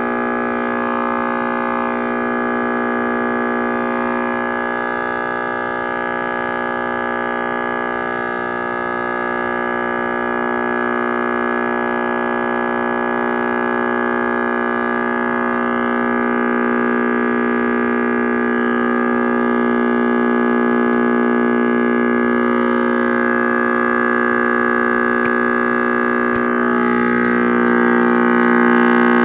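RCA Victor X551 AA5 tube radio giving a loud, steady buzzing hum with many overtones instead of a station. The owner traces it to a wiring fault: the output tube's pin 8 is still tied through a resistor to the now-live side of the power switch.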